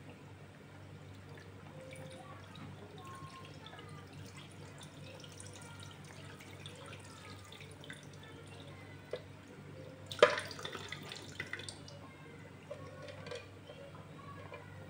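Bean sprouts being rinsed by hand in a plastic bowl of water in a stainless steel sink: faint sloshing and dripping water, with one sudden louder splash about ten seconds in.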